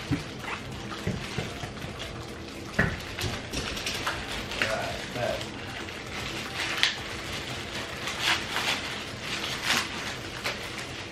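Plastic packaging crinkling and rustling in irregular bursts as stroller parts are unwrapped, with a single thump about three seconds in.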